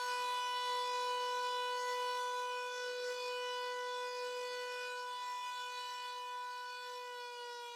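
Klaxon CS8 motor siren sounding one steady tone that slowly fades and begins to sag in pitch near the end. The sound is muffled because one of its shutters is jammed shut, so no air can enter that side of the rotor.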